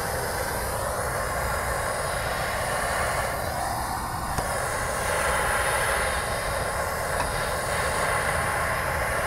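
Bernzomatic hand-held propane torch burning with a steady hiss. It is heating a seized ball-joint stud in the steering knuckle to loosen it.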